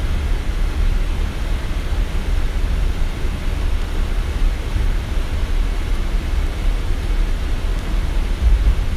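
Steady cockpit noise aboard a Boeing 777 freighter: an even hiss over a strong low rumble.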